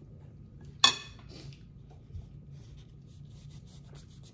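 A metal fork set down with one sharp clink against a plate about a second in, followed by a smaller tick, then faint rubbing of a napkin as fingers are wiped.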